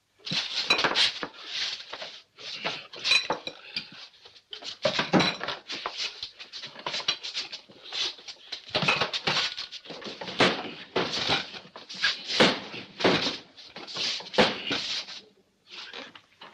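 Rapid, irregular clatter of crockery, cutlery and glass, with an occasional ringing clink, as dishes are handled hurriedly on a laden table.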